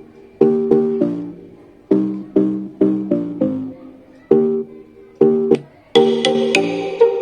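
Philips BT40 Bluetooth speaker playing an electronic pop track during a sound test: a run of plucked guitar-like notes, then about six seconds in a fuller beat with crisp percussion comes in.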